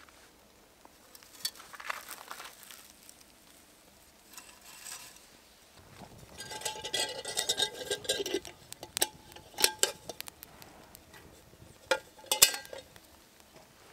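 Dry grass and wood-shaving tinder catching fire in a small metal wood stove, crackling densely for a couple of seconds, then popping now and then. Near the end a metal pot clatters as it is set onto the stove.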